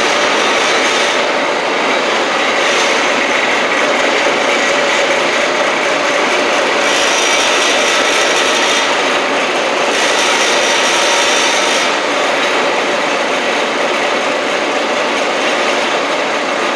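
1993 Case 1845C skid steer loader's diesel engine running loud and steady at close range as the loader drives across the floor.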